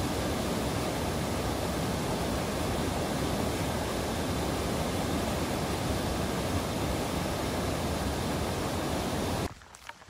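Small waterfall on a mountain stream, cascading over rock ledges: a steady rush of water that cuts off suddenly near the end.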